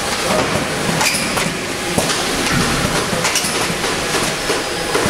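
Tray denester and soaker-pad pick-and-place machine running: a steady mechanical clatter with irregular sharp clacks from the feeding and placing mechanism.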